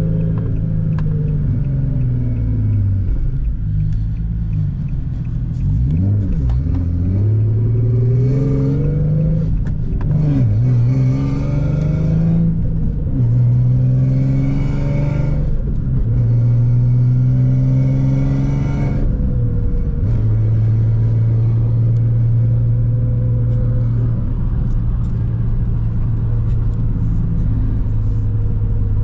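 Infiniti G37's 3.7-litre V6 engine driving, its pitch repeatedly climbing and dropping back through roughly the first two-thirds, as with acceleration and gear changes. It then settles into a steady cruise.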